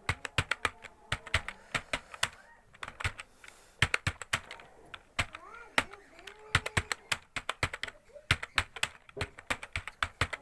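Computer keyboard being typed on at a steady pace, a few key clicks a second in an uneven rhythm with brief pauses.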